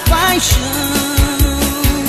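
Arrocha song playing, with a steady beat of about two thumps a second under held melodic notes.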